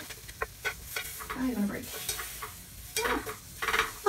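Wooden chopsticks and metal tongs clicking, tapping and scraping against a pot and pieces of fried cod in broth, as the fish is moved and arranged. The taps are short and come at irregular intervals.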